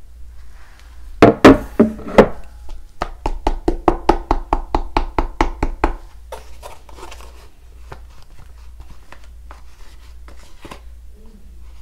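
A black plastic takeout container is knocked and tapped while held upside down over a glass dish of rice, to get the last of the thick palm butter out. A few loud knocks come about a second in, then a quick run of even taps at about six a second, then scattered lighter taps.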